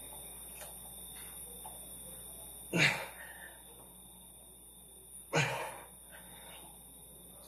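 Two heavy exhalations about two and a half seconds apart, each fading out over half a second: a man breathing hard under the strain of push-ups.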